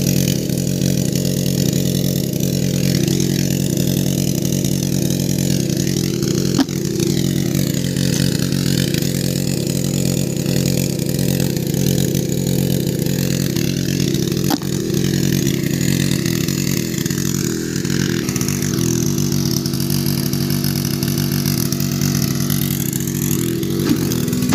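An engine running steadily at an even speed, with a couple of brief knocks.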